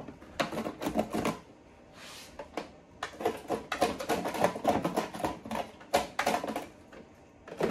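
Razor scraping a clear plastic storage tub, shaving off the burrs left around freshly drilled air holes: quick scratchy strokes in a short run near the start, then a longer run from about three seconds in.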